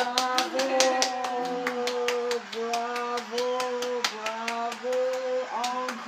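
Hands clapping at a quick, steady beat, with a voice holding long notes at a near-level pitch over the claps.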